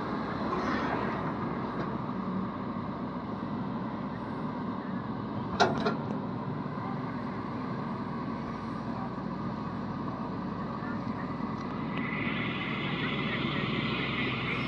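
Shantui ME210 crawler excavator's diesel engine running steadily under digging load. A sharp knock comes about five and a half seconds in, and a higher hiss joins about twelve seconds in.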